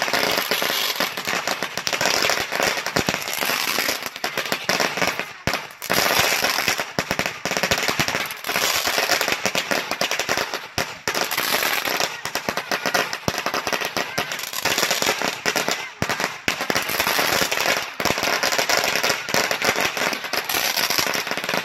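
A long string of Black Cat firecrackers going off: a dense, rapid, continuous volley of cracking bangs, thinning briefly a few times.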